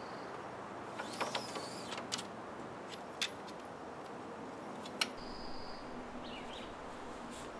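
Tent poles clicking and clacking a few times as a dome tent is taken down, over a steady outdoor background hiss. A few short high bird whistles and chirps sound over it.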